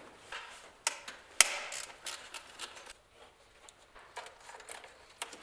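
Hands working the plastic intake parts under the hood: a few sharp clicks and knocks, the loudest about a second and a half in, with short scrapes of plastic in between as the factory airbox and its breather hose are worked loose.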